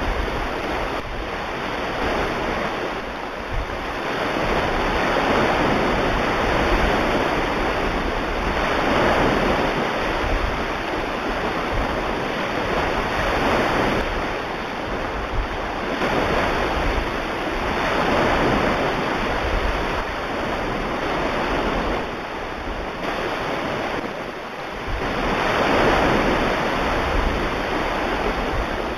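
Recording of ocean surf: waves breaking and washing in, swelling and fading every few seconds.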